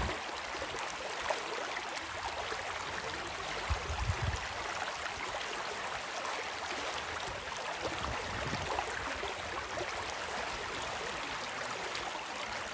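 Small river waves lapping and washing against shoreline rocks and pebbles, a steady wash of water, with a couple of brief low rumbles about four and eight and a half seconds in.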